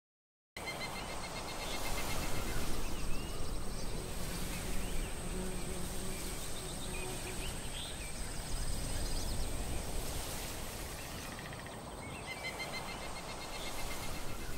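Woodland ambience starting suddenly about half a second in: insects trilling and birds chirping over a low rumble, with a thin steady high tone throughout.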